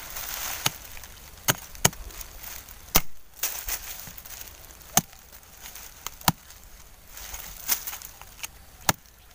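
Machete chopping into dry soil at the base of a bamboo shoot to cut it out: about eight sharp chops, irregularly spaced.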